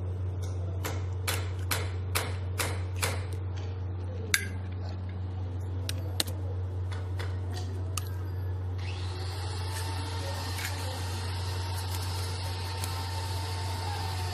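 Eggs tapped against the rim of a small steel bowl and cracked open: a quick run of sharp taps, then a few scattered clicks. About nine seconds in, a steady hiss sets in over a constant low hum.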